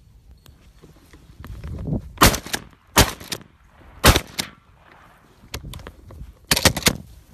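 Shotgun fired during a rabbit hunt: a series of sharp, loud blasts, three about a second apart and then a tighter cluster near the end.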